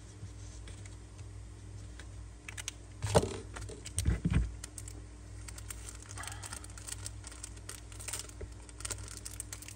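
Zippo lighters being handled: scattered light clicks and metal clinks, with two louder knocks about three and four seconds in.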